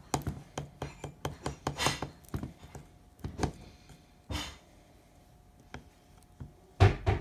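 A stirring stick knocking and scraping against plastic paint cups in quick irregular taps as the last paint is scraped into the pouring cup, with a louder knock near the end.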